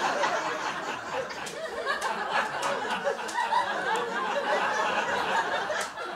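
Audience laughing, many voices at once, after a punchline.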